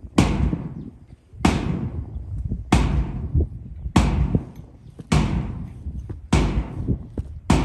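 Drum beating a slow march: seven heavy strokes, one about every 1.2 seconds, each ringing out slowly before the next.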